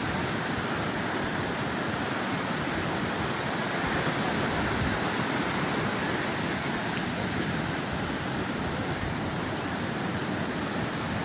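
Steady wash of sea surf on a sandy beach, an even rushing noise with no single breaking wave standing out.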